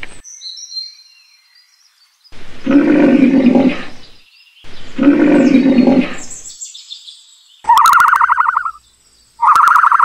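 Rhinoceros calls: two deep, loud bellows of about two seconds each, the first about two seconds in and the second right after it. Faint high chirps come before them, and near the end two shorter, higher-pitched buzzy calls follow.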